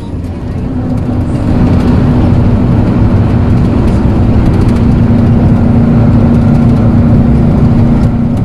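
Steady road and engine noise inside a moving passenger vehicle: a low, even drone with rushing noise over it, getting louder about a second in.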